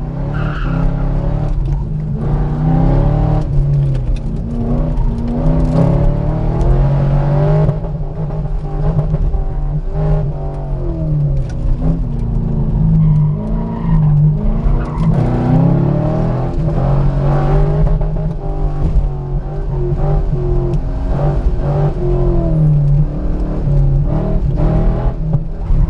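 1999 Chevrolet Corvette's LS1 V8 engine, heard from inside the cabin, pulled hard through an autocross course. The engine note climbs and drops again and again as the driver accelerates between cones and lifts for the turns.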